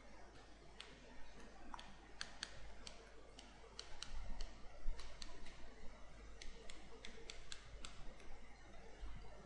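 Irregular clicks and taps of a stylus on a writing tablet as words are handwritten, over a steady low hum.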